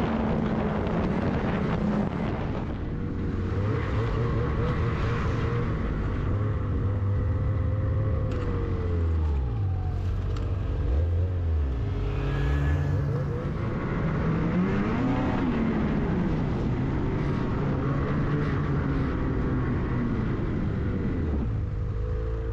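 Ski-Doo snowmobile engine running under way on a trail, its pitch rising and falling with the throttle. A second snowmobile passes a little past the middle, its engine note rising and then falling away.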